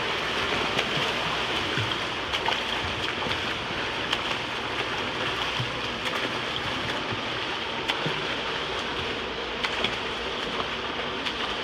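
Water splashing from children swimming freestyle in an indoor pool: a steady wash of churning water with small sharp splashes scattered throughout.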